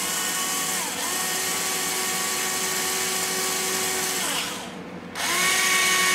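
Small electric drill fitted with a 1/16-inch bit, whining as it drills a small hole in the drone frame. It runs steadily for about four seconds, with a brief dip about a second in, winds down, then starts again for a second short burst.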